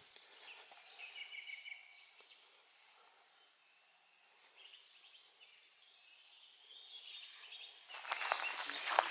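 Several songbirds singing short chirps and trills in open woodland. About eight seconds in, crunching, rustling footsteps on dry ground start and become the loudest sound.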